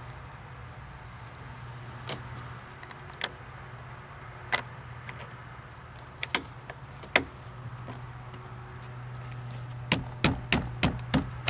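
Sharp clicks and knocks from door parts being fitted back into a car door, scattered at first, then a quick run of about six near the end, over a steady low hum.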